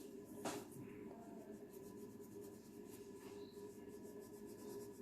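Faint scratching of a plastic crayon rubbing on paper as a drawing is shaded, with a soft tap about half a second in.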